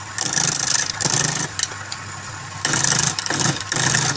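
Wood lathe running with a steady motor hum while a turning tool cuts the spinning work in repeated bursts about a second long, each a hissing scrape.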